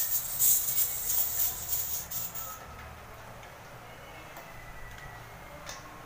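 Pressurised gas hissing out of a refrigeration line fitting in a sputtering stream while the system is purged, cutting off abruptly about two and a half seconds in. A faint click near the end.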